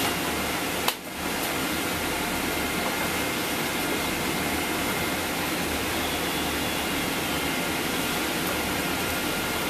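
Steady fan noise of moving air, with faint steady whining tones over it. There is a short break about a second in.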